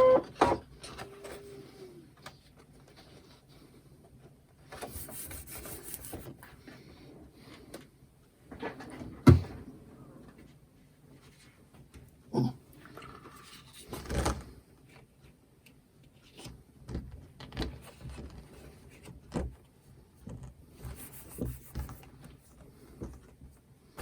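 Scattered light clicks, taps and knocks from a cutting mat and cardstock being handled at a Brother ScanNCut cutting machine, with a sharper knock about nine seconds in.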